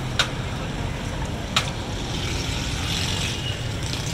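Steady rumble of road traffic, with two short sharp taps about a second and a half apart.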